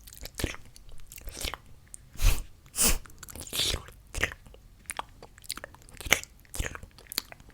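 A person's mouth close to the microphone imitating a pig eating: irregular wet smacking and chewing clicks, the loudest two about two and three seconds in.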